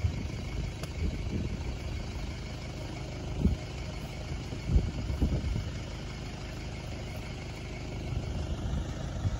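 Flatbed ute's engine idling with a steady low rumble, and two brief louder thumps near the middle.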